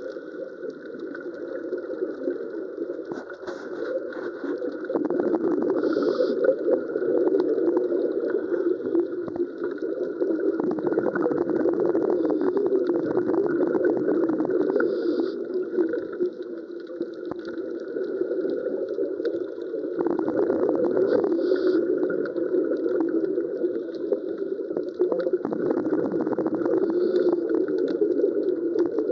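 Steady underwater bubbling and gurgling noise, swelling louder about five seconds in and dipping briefly past the middle.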